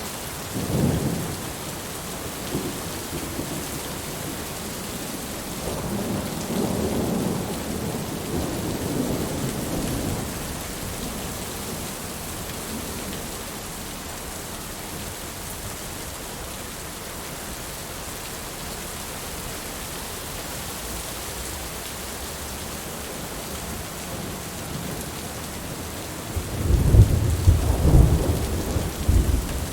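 Steady heavy rain with thunder: a short rumble about a second in, a longer rolling rumble a few seconds later, and a louder, deeper peal of thunder near the end, the loudest thing heard.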